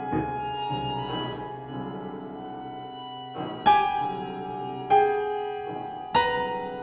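Contemporary chamber music for piano and strings: held bowed-string tones, with three loud struck piano chords in the second half, about a second and a quarter apart.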